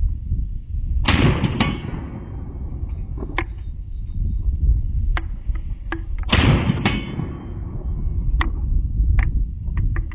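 Two shots from a Balıklı Makarov S20 20-gauge magazine-fed shotgun, about five seconds apart, each followed by a short echoing tail, with lighter knocks between them.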